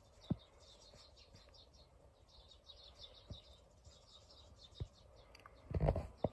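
Small garden birds chirping, many short high calls overlapping in a faint continuous twitter. A few soft knocks, and a louder muffled rustle near the end.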